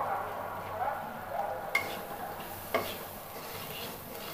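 Steel spatula stirring a spice paste frying in an aluminium pan, with a soft sizzle and two sharp scrapes of the spatula against the pan about a second apart in the second half.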